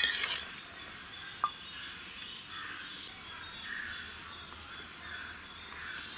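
A steel spoon clinks against a stainless-steel bowl right at the start as rice is served. After that comes low outdoor background with faint bird chirps.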